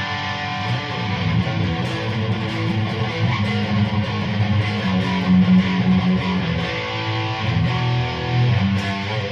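Mattrixx Telecaster-style electric guitar with twin humbucker pickups played through heavy distortion: sustained low chords and riff notes that change every second or so. The distortion is the guitar's own drive tone, which is called very brutal.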